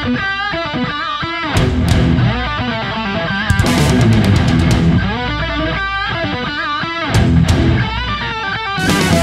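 Background rock music: an electric guitar plays a lead melody with bent, wavering notes over bass and drums, with cymbal crashes every few seconds.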